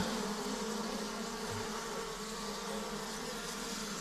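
Many honeybees buzzing in a steady, even hum around an opened hive during honey harvesting, with one short knock at the very start.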